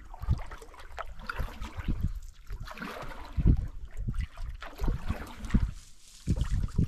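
Water trickling and gurgling around a canoe and its paddle as it is paddled slowly along, with soft, irregular low thuds.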